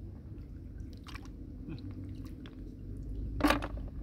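Hands groping through the sandy riverbed under shallow water to pick up snails: scattered small clicks and wet squelches, with one louder clatter about three and a half seconds in.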